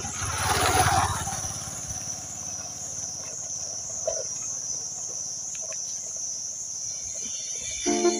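Steady high-pitched insect drone, with a faint motorcycle engine approaching from far off and a brief rush of noise about a second in. Keyboard music starts near the end.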